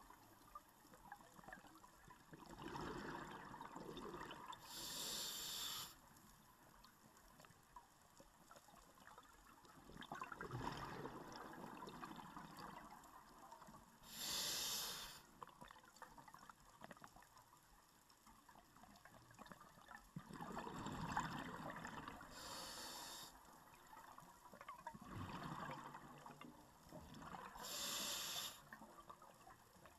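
A scuba diver breathing through a regulator underwater. Several breaths come at an unhurried pace, each with a short high hiss of air and a longer bubbly rush of exhaled bubbles, heard faintly through the camera's housing.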